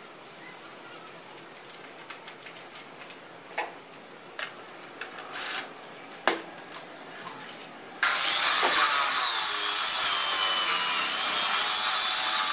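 Light scattered clicks and taps of handling, then about eight seconds in a power tool starts abruptly and runs steadily and loudly.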